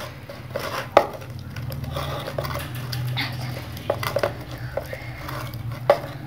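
Hands rubbing spice paste into whole raw chickens in a metal pan: wet rubbing and handling of the birds, with a few sharp knocks against the pan, one about a second in, two around four seconds and one near the end.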